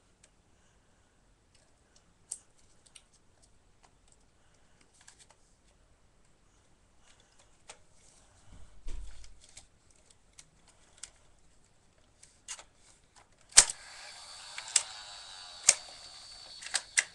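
Scattered light clicks and rattles of plastic toy Nerf pistols being handled and reloaded, with a dull bump about nine seconds in. Near the end a steady hiss starts with a sharp click, and several louder clicks follow.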